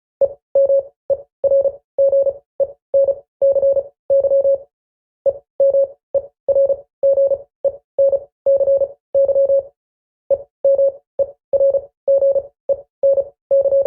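Morse code keyed as a single steady electronic tone in short and longer beeps, about two a second, with longer pauses about 5 seconds in and about 10 seconds in.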